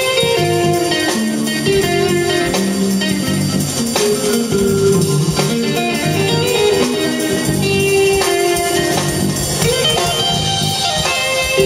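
Live jazz combo playing: an electric guitar takes an instrumental solo, a moving single-note line, over walking electric bass and a drum kit.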